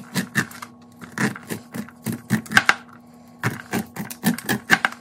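A chef's knife cutting kernels off an ear of corn, its blade tapping and scraping on a plastic cutting board in quick irregular runs of sharp taps, with a faint steady hum underneath.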